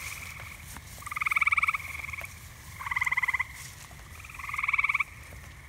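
Frogs calling at night: three pulsed, trilling calls, each under a second long, repeated about every second and a half.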